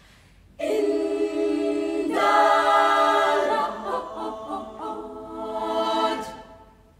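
Girls' choir singing a cappella. A full chord comes in suddenly about half a second in, swells, moves to a lower chord and dies away near the end.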